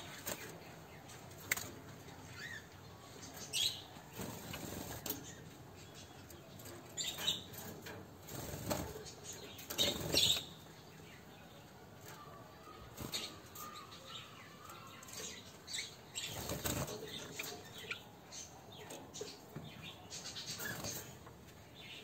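Java sparrows fluttering about a wire cage: irregular short bursts of wingbeats and scuffling, with the loudest flurry about ten seconds in.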